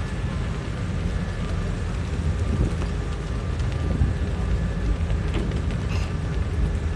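Steady low rumble of a car ferry under way, with wind buffeting the microphone on the open deck.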